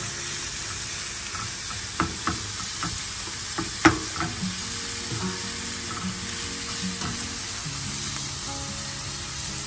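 Sliced onions, bell peppers and mushrooms sizzling as they sauté in a little oil in a pan, stirred with a wooden spatula. The spatula knocks against the pan a few times, sharpest a little before four seconds in.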